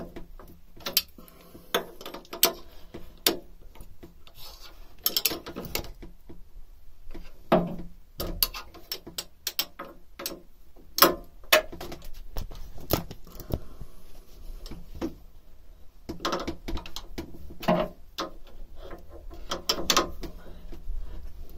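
Steel open-ended spanners clicking and clinking against the nuts and bolts of a narrowboat's flanged propeller-shaft coupling as they are checked for tightness: irregular sharp metal clicks, with a few short pauses.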